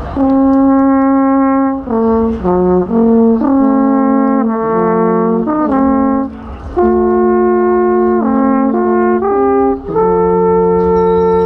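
Alphorn playing a slow melody of held notes, each rich in overtones, moving between notes every half second to two seconds and ending on a long held note.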